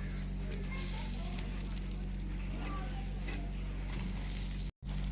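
Steady low hum with faint voices in the background; the sound cuts out for a moment near the end.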